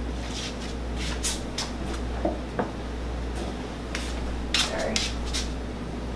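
Light kitchen handling noises: a scattering of short clicks and taps, two of them with a brief metallic ring, as a small vanilla bottle is capped and put away and a wire whisk is picked up beside a stainless steel mixing bowl.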